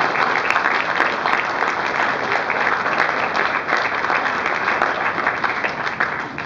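Audience applauding: many hands clapping at once in a dense, even patter that eases off slightly near the end.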